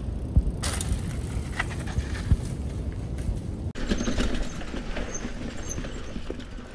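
Mountain bike riding a dirt trail: a steady low rumble of wind on the microphone and tyres on the ground, with the bike knocking and rattling over bumps. The sound changes abruptly about a second in and again about midway.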